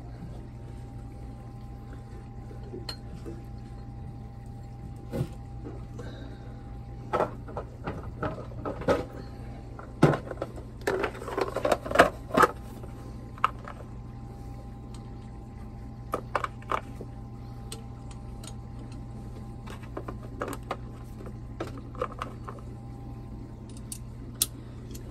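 Irregular metal clinks and clanks of a hand wrench on the mounting bolts as a new seawater pump is bolted onto a marine diesel engine, thickest in the middle, over a steady low hum.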